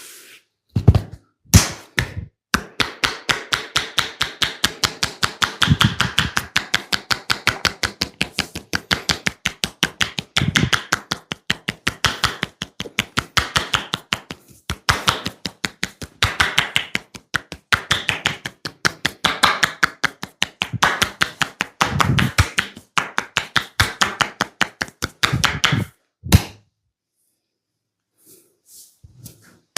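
Percussive massage: hands rapidly chopping and slapping on a person's body, about five strikes a second, in long runs broken by short pauses, stopping a few seconds before the end.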